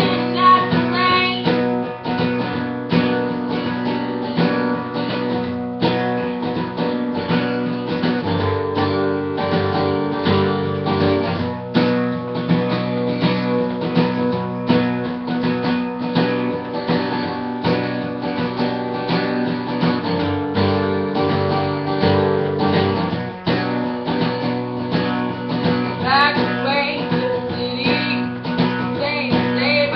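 Acoustic guitar strummed in a steady rhythm through an instrumental break, with a woman's singing coming back in near the end.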